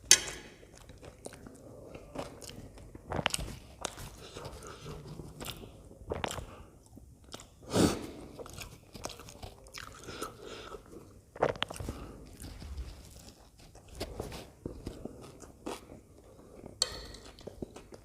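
Close-miked chewing and mouth sounds of a person eating pav bhaji, buttered bread rolls with mashed-vegetable curry: irregular wet smacks and clicks, the loudest about eight seconds in.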